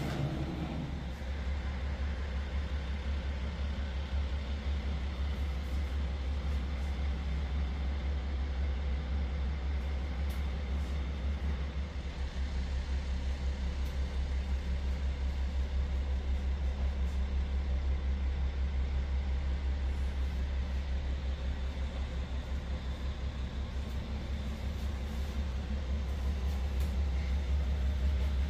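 Steady low rumble with a faint haze of room noise above it.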